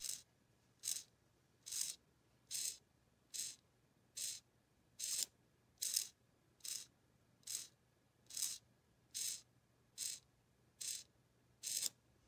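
SG90 micro servo's small DC motor and nylon gear train whirring in short bursts, about one every 0.8 seconds, as the horn steps between 0 and 180 degrees under pulse-width-modulated control.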